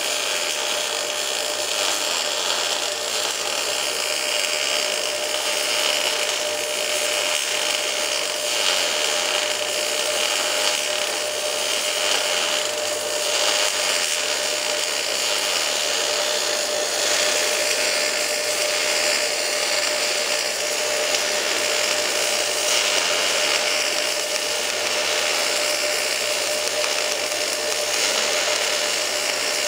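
Fronius TPSi MIG/MAG welding arc laying a root pass on pipe: a continuous steady hiss with a faint steady tone in it, running without a break.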